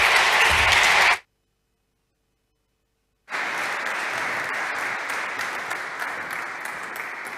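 Audience applauding. The sound cuts out completely for about two seconds a second in, then the clapping resumes and slowly fades.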